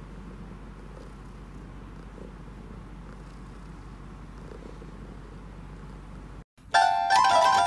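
Domestic cat purring steadily, close to the microphone, while its front paw is handled. About six and a half seconds in it cuts off suddenly and a bright, plucked-sounding melody starts much louder.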